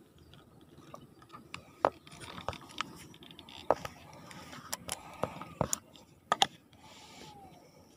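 Hands handling a fishing line and a freshly caught fish: rustling with a scatter of about seven sharp taps and clicks in the middle of the stretch.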